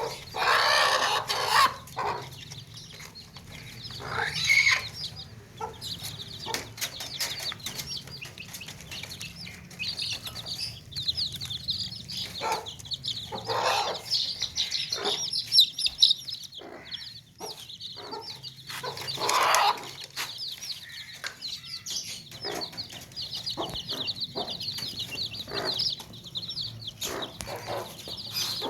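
A group of baby chicks peeping continuously in rapid, high-pitched chirps. Louder, lower clucking calls from a chicken break in a few times, about a second in, around four seconds, and in the middle.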